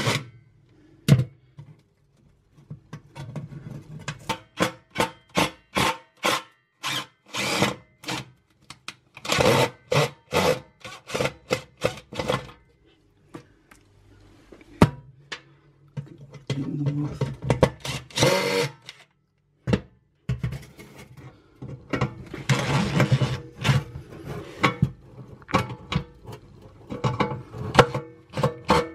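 Background music with a beat, over short runs of a cordless impact driver working at the rusted screws of a fan oven's rear fan cover.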